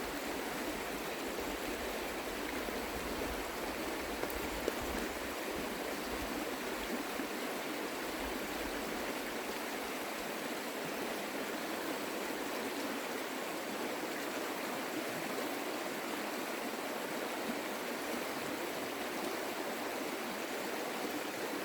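A creek flowing, a steady even rush of water, with two faint ticks a little over four seconds in.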